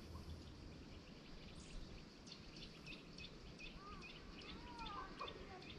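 Small birds calling faintly over a low, steady outdoor background: a quick run of short high chirps, about three or four a second, starts about two seconds in, with a few sliding whistled notes near the end.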